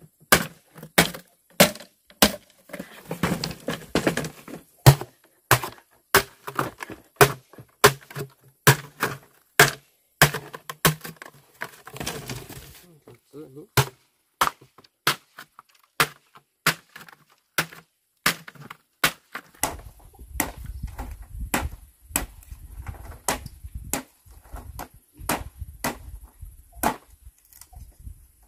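Machete blade chopping green bamboo poles against a wooden log: a long, even run of sharp woody chops, about two a second at first and a little slower later. A low rumble sits under the strikes near the end.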